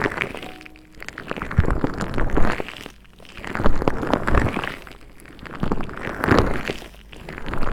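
Close-miked crackling rustle from hands working an object right at the microphone, swelling and fading about once a second.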